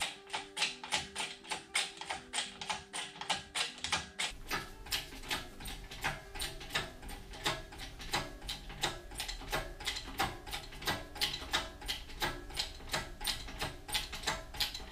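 A hand-operated ratchet clicking steadily, about three clicks a second, as it is worked back and forth on the lathe's cast-iron cabinet leg and motor.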